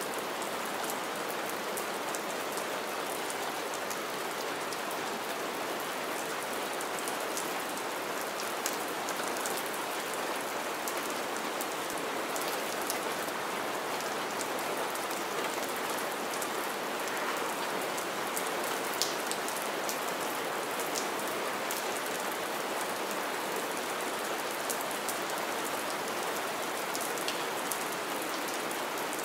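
Steady rain falling on wet ground and puddled pine needles, an even hiss dotted with many separate drops ticking and splashing.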